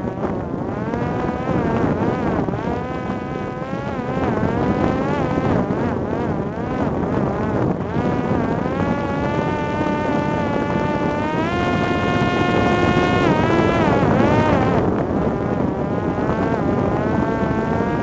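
Parrot Disco fixed-wing drone's electric pusher motor and propeller buzzing in flight, the pitch repeatedly rising and falling with the throttle and holding steady for a couple of seconds a little past the middle.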